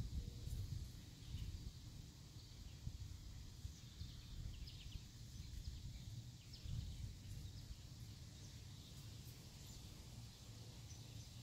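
Quiet outdoor background: a low steady rumble with faint, scattered high bird chirps.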